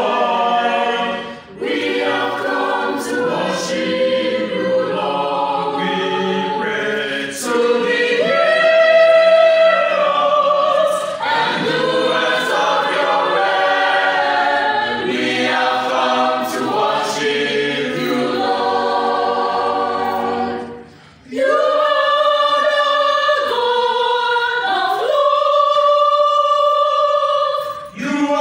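Mixed choir of men's and women's voices singing unaccompanied, a cappella, with short breaks for breath about a second and a half in and again about 21 seconds in.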